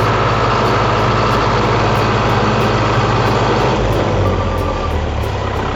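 Heavy truck engine running at idle, a steady low hum whose low note shifts about four seconds in.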